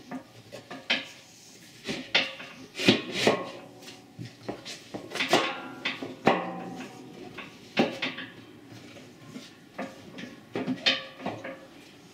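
Irregular wooden knocks, clunks and scrapes as wooden battens are slid and wedged into place on a plywood disc in the mouth of a steel cement mixer drum.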